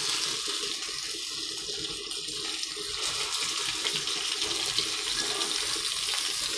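Pomfret slices shallow-frying in oil on a cast-iron tawa: a steady sizzle with small crackles.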